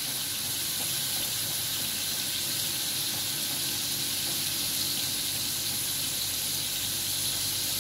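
Steady sizzling hiss of onions, tomatoes and shredded boiled beef frying in oil in a frying pan.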